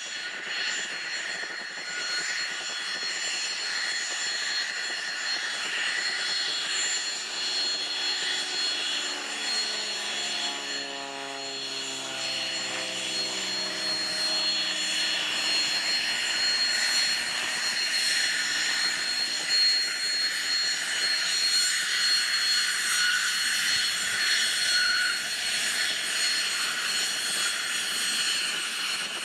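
The twin Williams FJ44 turbofans of a Hawker Beechcraft Premier I jet whine steadily at taxi power, with several high steady whine tones over a rush of noise. Partway through, a lower tone sweeps downward for several seconds.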